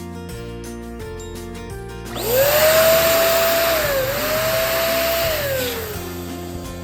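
Electric balloon pump running for about three and a half seconds: a rush of air with a motor whine that rises as it spins up, dips briefly in the middle, and falls away as it stops, inflating a balloon. Background music plays throughout.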